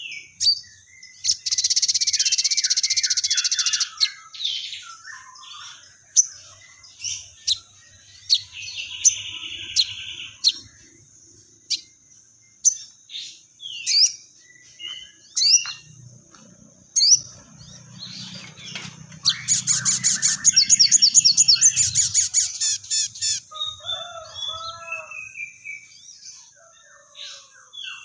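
Sogon bird singing a varied, chattering song of short chirps and sharp notes that takes up the scolding calls of fighting tree sparrows. There is a dense buzzy trill near the start and a fast rattling run about two-thirds of the way through, over a faint steady high tone.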